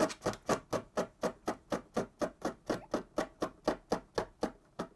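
Snap-off knife blade held flat as a scraper, scraping cured gelcoat filler in quick, even strokes at about five a second, which stop just before the end. This is the excess filler being shaved down towards the original gelcoat.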